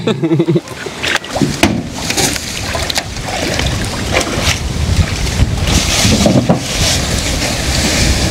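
Strong gusty wind rumbling on the microphone, with a few sharp knocks about a second and three seconds in.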